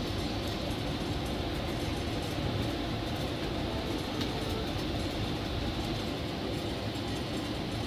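Steady rumble and running noise of a moving passenger train, heard from inside the air-conditioned sleeper coach.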